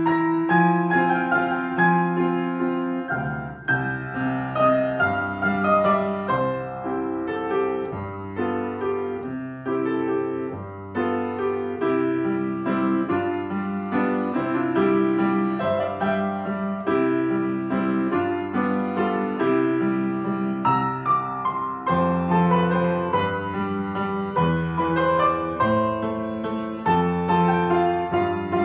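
Black upright acoustic piano playing a waltz written for piano duet, taken by one player alone: low accompaniment notes repeat under a melody in the upper register.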